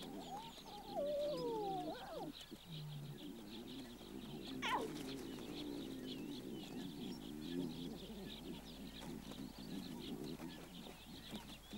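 Wild animal calls: a few whining, falling calls in the first two seconds and one brief rising-and-falling squeal near five seconds, over steady fast high-pitched chirping and scattered lower calls.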